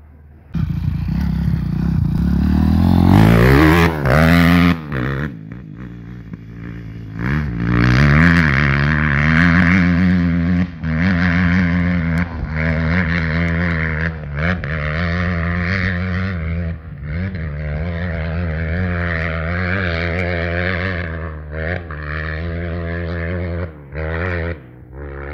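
Dirt bike engine running loud. It is revved hard a few seconds in, the pitch rising and falling, then settles to a steady note with short rises and dips.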